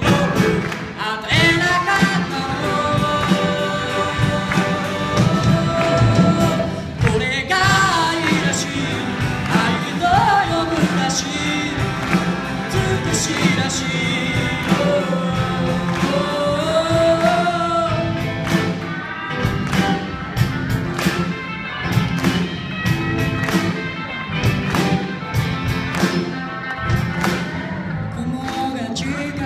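Live rock band playing a song on drums and guitars, with a sung lead vocal over a steady drumbeat.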